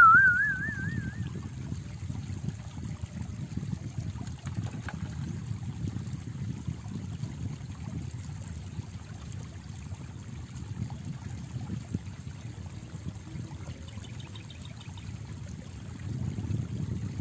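Steady low rushing of river water. At the very start, a loud warbling, whistle-like tone rises in pitch for about a second and then fades.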